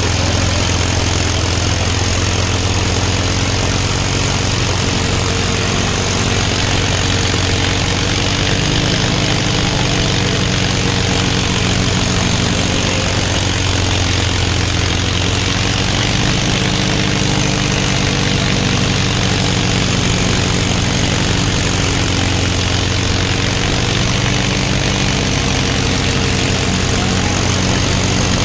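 Tractor diesel engines running steadily, as in a tractor tug-of-war where the machines pull against each other under load. The engine note drifts slightly in pitch without stopping or changing much.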